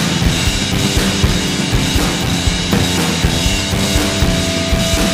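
An indie rock band's recording: a drum kit playing a steady beat with bass drum and snare, under sustained instrument notes, one new held note coming in about three seconds in.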